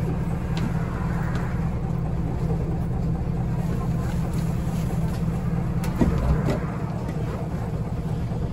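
Scania L94UB bus's Scania DC9 diesel engine running steadily, heard from inside the passenger cabin, with a sharp knock about six seconds in.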